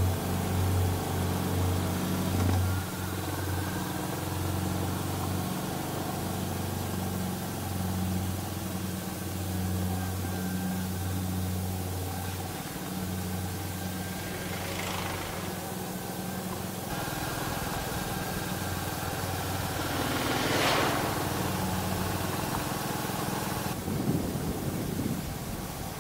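2022 Royal Enfield Classic 350's single-cylinder engine running under way, a steady low engine note with wind noise over it. There are two brief rushes of louder noise about two-thirds of the way through.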